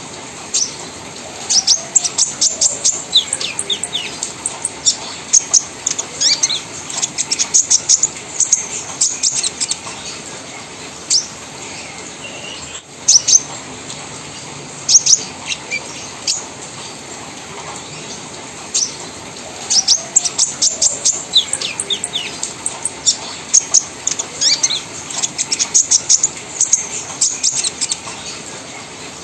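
Olive-backed sunbird (kolibri ninja) singing in its cage: long runs of rapid, sharp, high-pitched chirps and trills in a chattering 'crewet' style, with a short pause midway.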